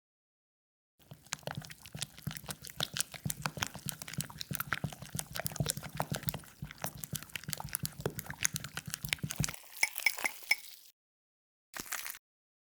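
Egg being beaten in a small bowl: rapid, dense clicking and sloshing of liquid that starts about a second in and stops suddenly about nine and a half seconds in, with a few last clinks after.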